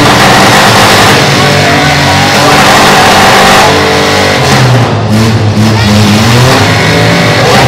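Several compact demolition-derby cars' engines revving hard at once, loud, with their pitches rising and falling over one another as the cars push and ram.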